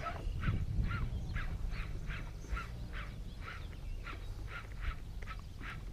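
An animal calling over and over in a steady rhythm, about three short calls a second, over a low rumble.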